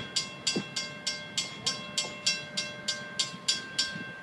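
Railroad grade-crossing bell ringing rapidly, about three strokes a second, then stopping just before the end as the train clears the crossing. Underneath is a low rumble from the passenger train moving off.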